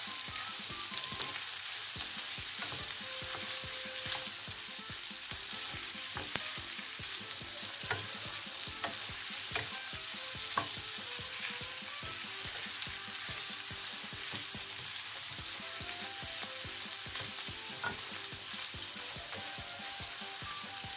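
Mutton intestines with onion and tomato frying in hot oil, a steady sizzle, as they are stirred in the pan, with scattered clicks of the utensil against the pan.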